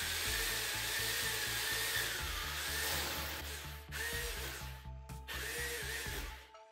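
Electric rotary hammer drilling holes into a wall, running in stretches with a wavering whine and stopping briefly about four and five seconds in as the bit moves to the next mark. Background music plays under it.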